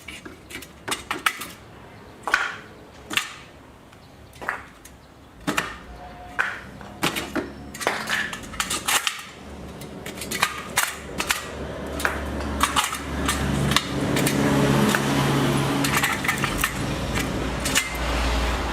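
Stainless steel firewood tongs clicking and knocking against logs in a string of sharp, separate knocks. From about two-thirds of the way in, a steady rushing noise with a low hum grows louder.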